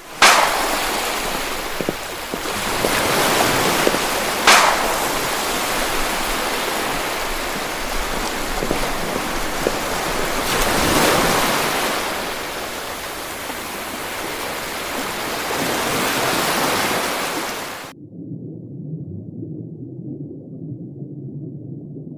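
Ocean waves surging and washing in slow swells, with a sharper crash about four and a half seconds in. The surf cuts off suddenly about 18 seconds in, leaving only a faint muffled low sound.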